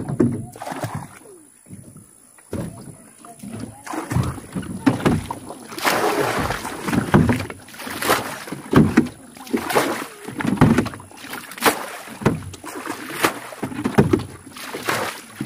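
Rainwater being bailed out of a small fishing boat: repeated scoops and splashes of water about once a second, with sharp knocks in between.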